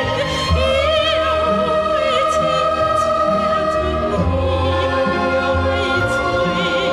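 A woman sings a slow melody with vibrato over live orchestral accompaniment.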